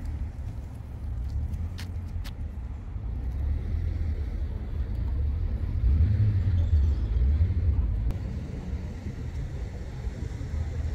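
Outdoor harbourside background: a low, unsteady rumble that swells to its loudest about six to eight seconds in and then eases, with two faint clicks near the start.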